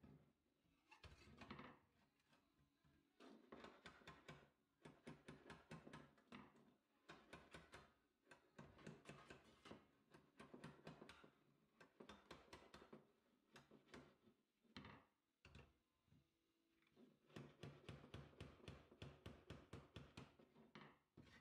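Faint runs of quick hammer blows, several a second with short pauses between runs: a hammer striking a small piece of sheet steel held against a hand dolly, folding over its edge.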